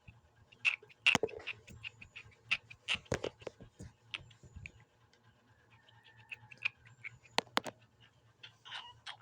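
A baby grinding its teeth: irregular sharp clicks and squeaky scrapes of tooth on tooth, a few a second, some in quick pairs, thinning out for a moment midway.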